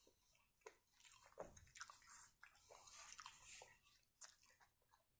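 Faint, irregular scraping and clicking of a metal spoon stirring soft mashed potatoes in a paper bowl, busiest in the middle.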